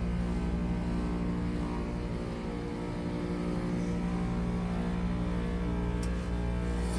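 Carrier Performance Series heat pump outdoor units running in a winter defrost cycle: a steady compressor hum of several held tones over a low drone, with a faint tick about six seconds in.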